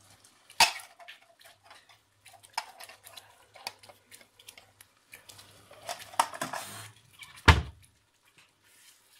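Wooden spoon stirring thick tomato sauce in a pot, scraping and knocking against the pot, with a sharp knock about half a second in and a louder one near the end.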